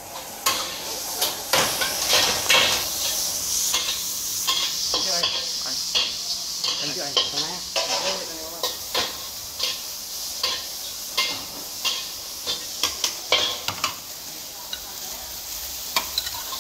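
Metal spatula scraping and clanking against a wok over a high gas flame while flat rice noodles (ho fun) sizzle. Irregular sharp strikes of the spatula ride over a steady sizzle, busiest about two seconds in and again near the end.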